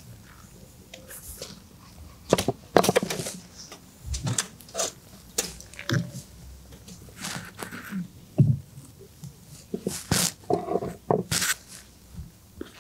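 Chairs being picked up, moved and set down: a string of irregular knocks, clatters and scrapes.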